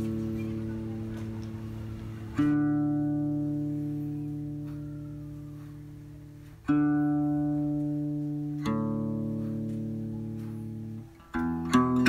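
Slow background music on guitar: a chord is struck every two to four seconds and left to ring and fade, with a few quicker notes near the end.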